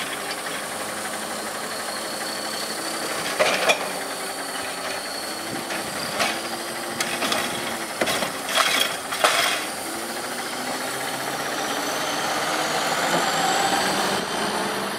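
Natural-gas garbage truck with an automated side-loader body idling steadily, with a few sharp metallic clunks from the truck's body and equipment. Near the end a rising whine and a swell of engine noise as the truck pulls away.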